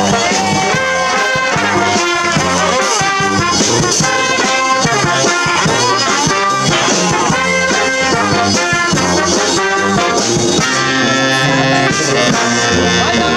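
Live brass band playing, several horns in harmony over a steady beat and a moving bass line. About eleven seconds in, the horns change to longer held chords.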